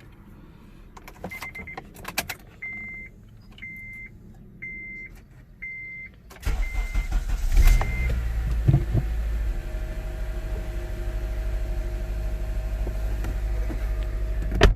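Clicks, then a dashboard warning chime beeping about once a second, seven times; about six and a half seconds in, the 2007 Acura TSX's engine cranks, catches and settles into a steady idle.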